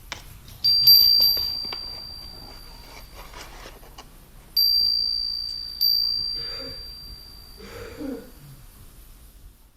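A small high-pitched metal chime struck three times, about a second in, near the middle, and again a second later. Each strike gives one clear ringing tone that fades slowly. Faint handling rustles follow.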